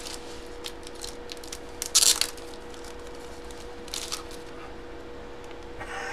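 Hard plastic coin slabs being handled on a tabletop: scattered light clicks, with a brief clatter about two seconds in and a smaller one near four seconds, over a steady faint hum.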